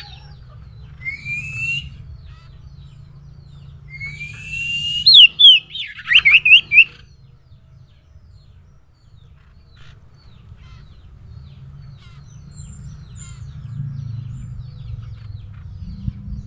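Common iora calls. There is a short rising whistle about a second in. Near four seconds comes a longer rising whistle that breaks into a quick run of loud, wavering notes. A low steady hum runs underneath.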